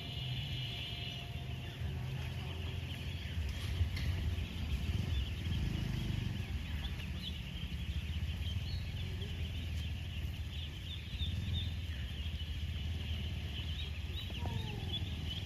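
A large flock of ducklings peeping all at once, a dense, continuous chatter of many overlapping high chirps, over a steady low rumble.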